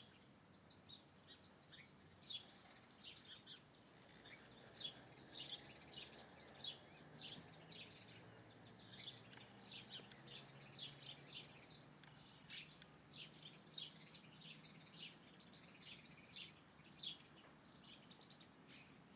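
Faint chirping of a group of small birds: a dense run of short, high chirps, several a second, overlapping throughout.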